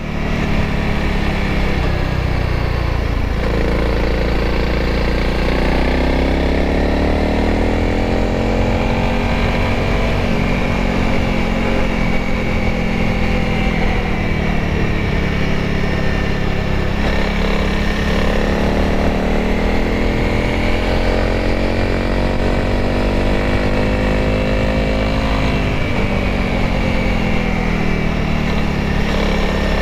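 Honda CRF300L's single-cylinder engine running while the bike is ridden, heard from the rider's seat. Its pitch rises and falls as it speeds up and eases off, with sudden drops about three seconds in and near the end.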